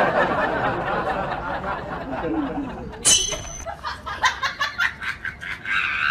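People laughing and chattering, then an abrupt sharp sound about three seconds in, followed by a quick run of short repeated pulses.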